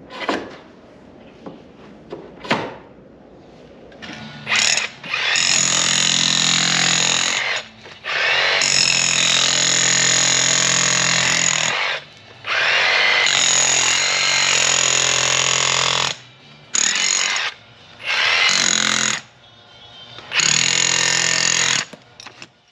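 Cordless power tool running in about six bursts of one to four seconds each, starting about four seconds in, its bit breaking up soil to widen a hole for an in-ground handhole. A couple of sharp knocks come before it.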